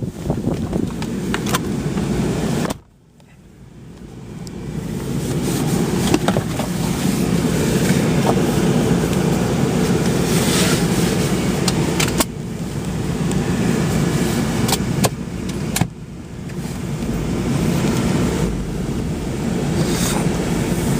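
Car running down the road, heard from inside the cabin: a steady low rumble of engine and tyres with scattered small clicks. It cuts out abruptly about three seconds in and builds back up over the next few seconds.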